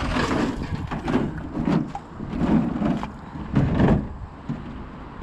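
Junk being rummaged through and shifted by hand: a series of scrapes and knocks about a second apart, over a low rumble of wind on the microphone.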